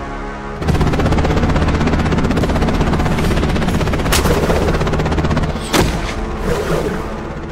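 Helicopter rotors chopping rapidly and steadily over a low engine drone, starting about a second in, with two sharp bangs partway through.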